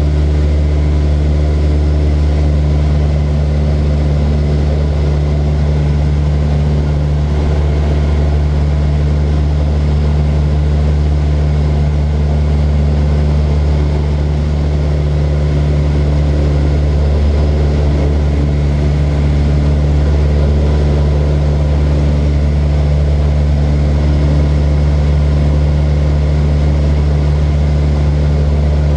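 Propeller aeroplane's engine running steadily in flight, a constant low drone that does not change in pitch or level.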